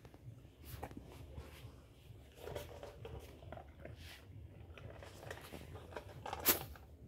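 A Bernese mountain dog eating from a stainless steel bowl: irregular chewing and crunching with muzzle knocks against the bowl, and one louder click near the end.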